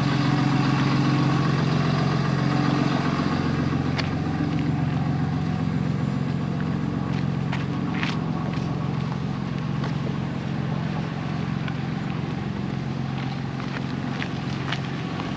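A vehicle engine idling with a steady low hum that slowly grows fainter.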